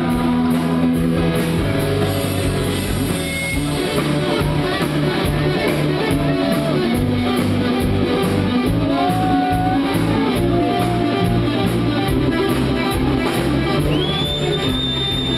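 Rock band playing live, with guitars over a steady drum beat. A high note is held near the end.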